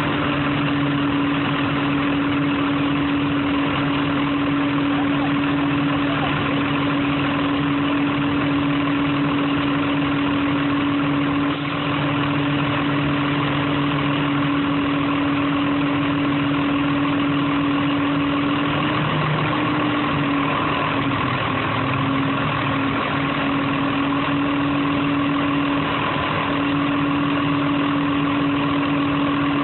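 A machine engine running at a steady idle, with a constant hum that wavers and breaks up for a few seconds past the middle.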